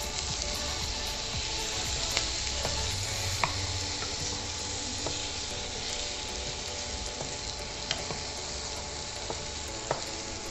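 Potato and pointed gourd pieces sizzling steadily in a little oil in a frying pan while a wooden spatula stirs them, with a few sharp clicks of the spatula against the pan.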